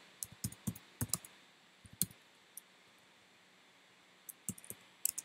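Keystrokes on a computer keyboard: a quick run of typing in the first second or so, a couple of single keys around two seconds in, a pause of about two seconds, then another run of typing near the end.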